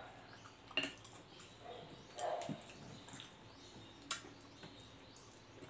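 A person eating instant noodles with chopsticks: soft wet chewing and slurping, with two sharp clicks about a second in and about four seconds in.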